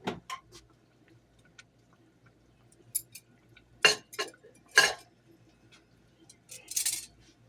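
Glass canning jars clinking against each other and against kitchen utensils: two sharp clinks at the start, then three louder ones about a second apart from about three seconds in, the last the loudest, and a short scraping rustle near the end.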